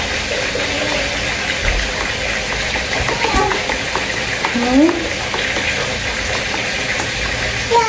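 A spoon stirring and lightly clicking against a plastic pitcher of milky drink, over a steady background hiss, with faint voices in the middle.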